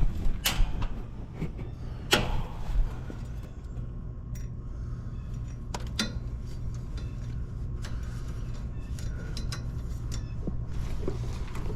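Scattered sharp clicks and knocks over a steady low hum.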